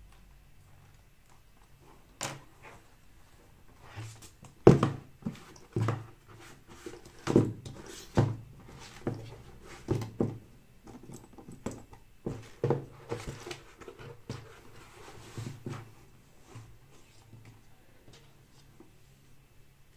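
A leather bag being handled and shifted about on a cutting mat: about a dozen irregular soft thumps, some with a light clink from its metal buckles, strongest in the middle of the stretch.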